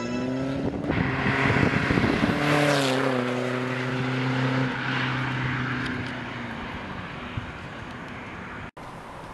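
A tuned diesel car running hard along the road, with a steady engine drone and exhaust noise. The drone eases down in pitch and fades as the car moves away, then cuts off suddenly near the end.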